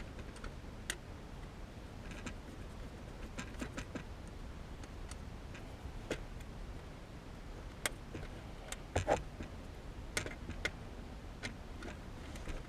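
Hand screwdriver driving and tightening small screws in a car's shift-boot trim, with irregular light clicks and taps of the tool and parts. A louder cluster of clicks comes about nine seconds in.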